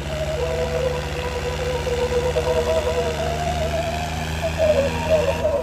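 Three-cylinder diesel engines of a Swaraj 744 and a John Deere 5210 tractor running hard under heavy load as the two pull against each other in a tug of war. The engine note wavers and swells near the end.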